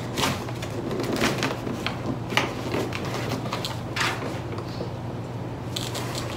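Fingers scratching and picking at a cardboard shipping box, with scattered small clicks and scrapes over a steady low hum.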